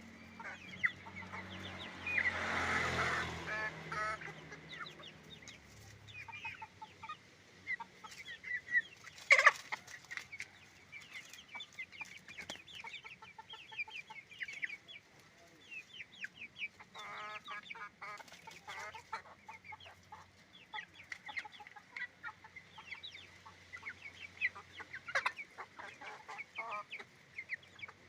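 A flock of chickens on a farm, hens and roosters, clucking and calling in many short, scattered calls, with a louder flurry about two to four seconds in and one sharp loud call a little after nine seconds. A faint steady high tone runs underneath.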